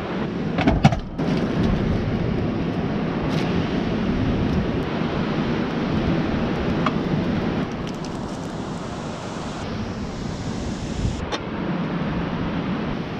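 Strong wind buffeting the microphone over the steady rush of rough surf, with a few light knocks and clinks from cookware.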